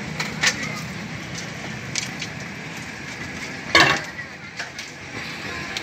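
A few sharp clinks and knocks of serving vessels and glasses being handled, the loudest a little under four seconds in, over steady background noise.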